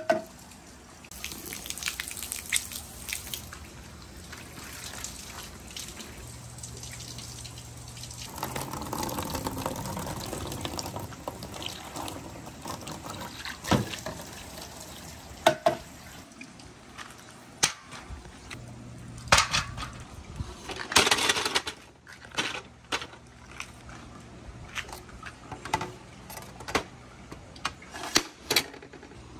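Water running from a garden hose into a plastic shishiodoshi pipe and splashing out into a tray. Scattered sharp knocks and clatters sound over the running water.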